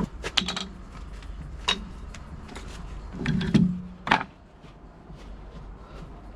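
Several sharp knocks and clunks with a short scrape about three seconds in, as tools and timber are handled and set up for a cut; no power tool is running.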